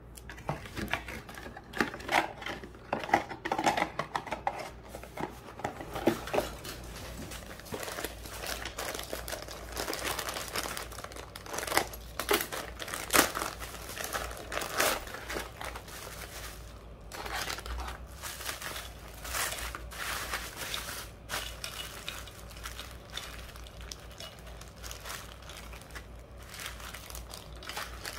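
Plastic packaging and bubble wrap crinkling and rustling as a parcel is handled and unwrapped, with a run of sharp clicks and knocks in the first several seconds.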